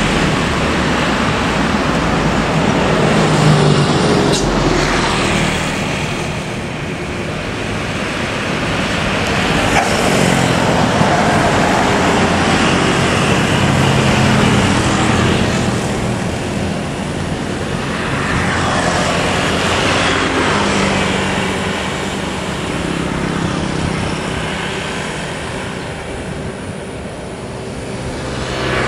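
Busy road traffic: coach buses, trucks and motorcycles driving past one after another, their engine and tyre noise swelling and fading with each pass.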